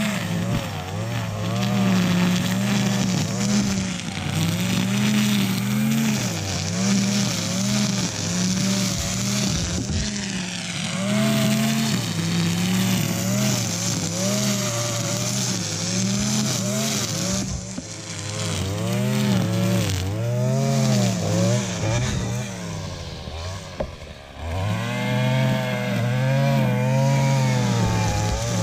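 Loud string trimmer engine revving up and down as the line cuts through tall, thick grass, its pitch rising and falling every second or two. Late on it drops briefly toward idle, then revs back up.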